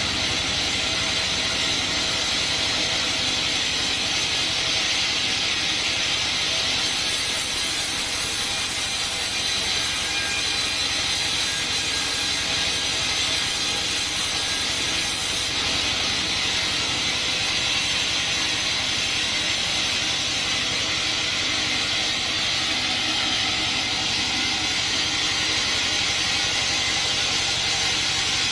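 Sawmill band saw cutting coconut wood: a steady, unbroken hissing machine noise.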